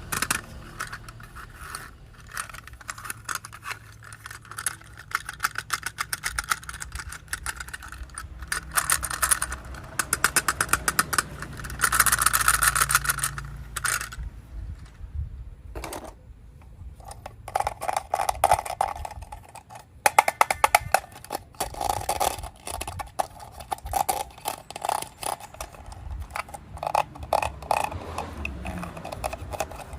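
Plastic toy train parts and packaging being handled: rapid clicking, rattling and scraping, with a dense run of clicks about twelve seconds in.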